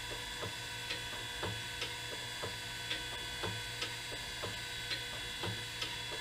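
Surface grinder running: a steady motor hum with a light, even tick about twice a second.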